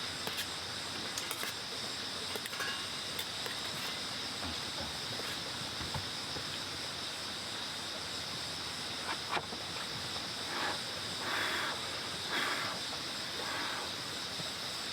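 A steady high hiss, with a few faint clicks early on and soft puffs of noise about once a second near the end.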